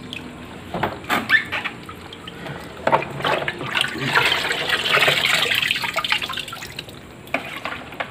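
Water splashing and sloshing as a plastic scoop is worked by hand through a bucket of water holding catfish. There are a few short splashes, then a longer, louder stretch of sloshing from about four to six seconds in.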